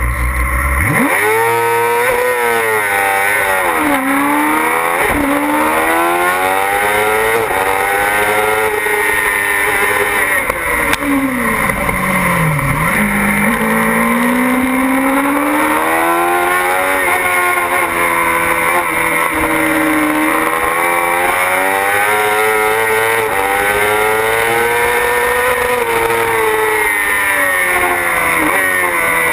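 Yamaha R6 inline-four sport-bike engine launching off the start line about a second in, then revving hard up through the gears with quick upshifts. The revs drop for a corner near twelve seconds and climb again, rising and falling with each shift and corner.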